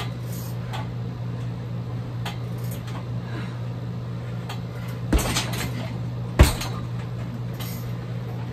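Two kicks landing on a heavy bag about a second apart, the second one louder, over a steady low hum.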